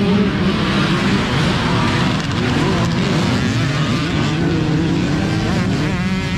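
A pack of off-road dirt bike engines revving and accelerating together at a race start, several engine pitches rising and falling over one another.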